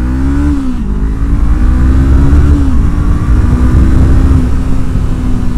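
Honda CBR500R's parallel-twin engine and exhaust pulling under way: the revs rise and drop sharply, just under a second in and again near the middle, as it shifts up, then hold fairly steady.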